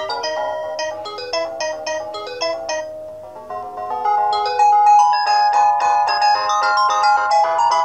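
Philips SE 455 mobile phone playing a synthesized ringtone melody of short electronic notes. About halfway through, the tune changes and gets louder.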